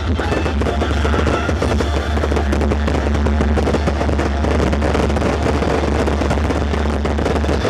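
A fireworks display going off in a dense, continuous crackle of rapid bangs and pops, over loud music with a steady deep bass.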